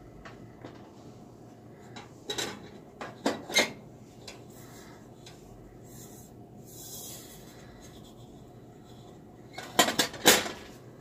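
Kitchen handling around an electric waffle maker: utensils scrape and clatter against it and the lid is shut. There are two clusters of sharp knocks and clicks, one a couple of seconds in and a louder one near the end.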